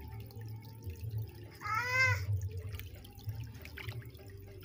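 Hands swishing and splashing in a plastic tub of water while grabbing small koi, with light drips and sloshes. About two seconds in comes one short, high-pitched call that rises and falls in pitch.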